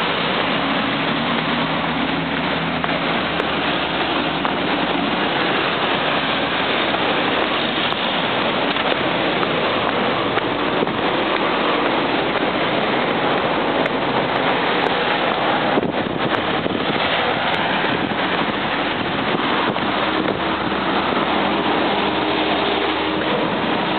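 Steady noise of heavy city traffic on a multi-lane road, mixed with wind buffeting the microphone.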